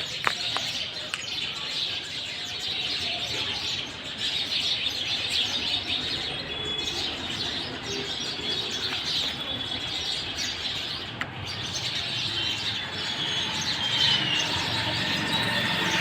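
A dense chorus of many birds chirping and whistling together, with one sharp click just after the start.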